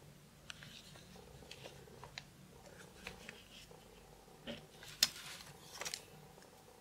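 Faint clicks and short scrapes of square resin diamond-painting drills being pushed about with a drill pen in a plastic tray, with one sharper click about five seconds in.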